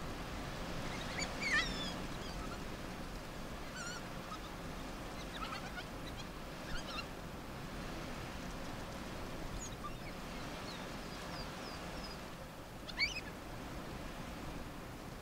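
African wild dogs twittering: several short bursts of high-pitched chirps and squeaks every second or two, the excited calls pups make when begging from adults, over a steady background hiss.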